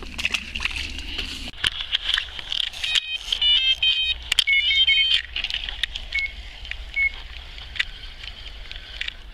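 Electronic carp bite alarm beeping in a fast run of stepped tones for about two seconds, then two single beeps, as a fish takes line: a bite on the rod. Rustling and clicks of handling through the grass.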